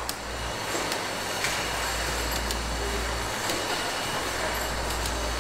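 Automatic spice-tin filling and labelling line running: steady machine noise over a low hum, with a few faint clicks.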